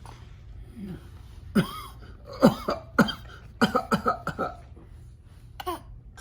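A person coughing: a run of short, hacking coughs in quick succession from about a second and a half in, then one more cough near the end.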